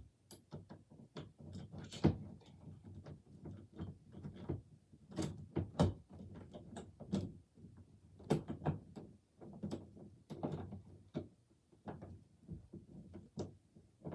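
A wooden door being handled on its hinges as it is refitted: a series of irregular knocks, clunks and rattles, the loudest about two and six seconds in.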